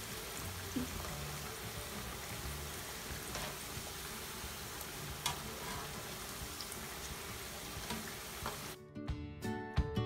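Potato wedges deep-frying in hot oil: a steady sizzle, with a few faint clicks as a wire skimmer turns them. Near the end the sizzle cuts off and background music with distinct notes takes over.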